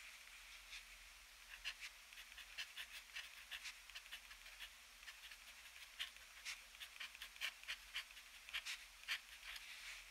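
Extra-fine steel nib of a TWSBI ECO fountain pen scratching on paper in quick, short strokes as Japanese characters are handwritten. The sound is faint, with a brief pause near the middle.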